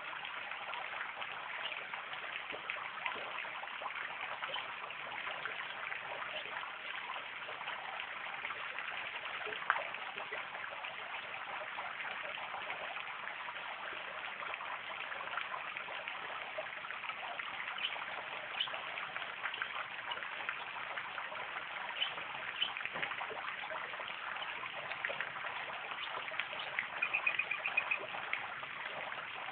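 Garden fountain jet spraying and splashing steadily onto rocks and water: a continuous trickling and pattering of falling water with many small drips.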